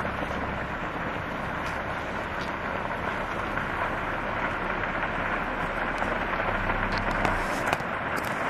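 Dry grass burning on a hillside in a controlled burn: a steady rushing noise with a few sharp crackles, several of them near the end.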